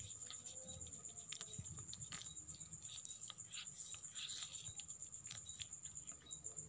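A kitten licking its fur as it grooms: faint, irregular small clicks and rasps of the tongue, over a steady high-pitched whine.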